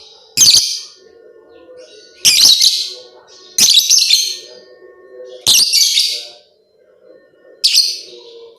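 Lovebird calling in five loud, shrill, harsh bursts of chattering, each about half a second to a second long, with a softer low warbling chatter between them.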